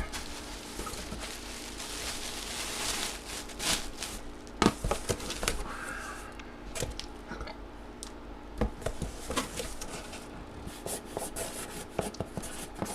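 Cardboard box and packing material being handled and opened: irregular rustling, rubbing and scraping with scattered light knocks, over a faint steady hum.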